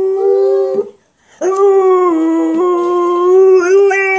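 A dog howling in long, steady notes: one howl breaks off about a second in, then after a short pause a second long howl is held and wavers in pitch near the end.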